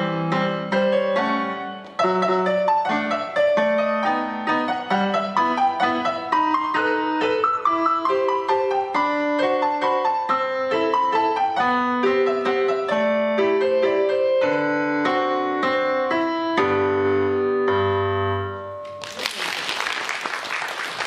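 Solo piano playing a waltz, closing on low notes; about nineteen seconds in, the music stops and the audience applauds.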